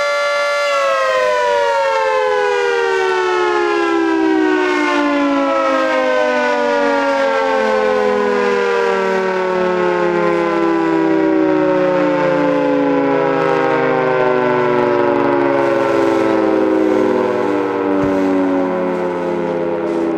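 Federal Signal 3T22 mechanical warning siren holds a steady two-tone chord, then winds down once power is cut. About a second in, both tones begin to fall together, and the pitch keeps dropping slowly through the rest as the rotor coasts down at the end of a test sounding.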